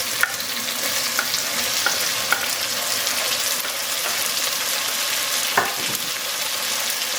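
Chopped onion, garlic, serrano pepper and tomato sizzling steadily in hot avocado oil in a pot, with a few sharp clicks and knocks of the utensil or added food against the pot, the loudest about five and a half seconds in.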